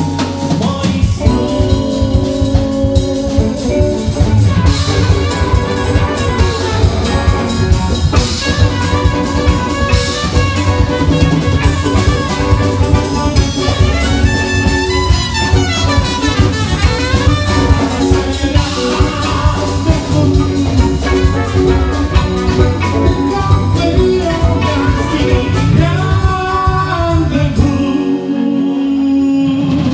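Live band playing a pop-rock cover: drum kit, bass, electric guitar, keyboards and brass with a trumpet part, and a male voice singing. Near the end the drums and bass drop out for a moment.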